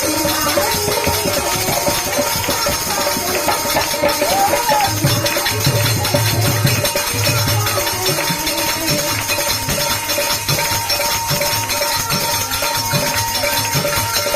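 Instrumental passage of a bhajan: held steady notes over fast percussion, with low drum beats coming in about five seconds in.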